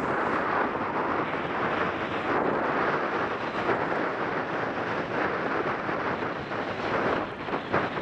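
Steady rushing noise of wind buffeting a helmet-mounted camera's microphone, mixed with skis hissing and scraping over groomed snow while skiing downhill at speed.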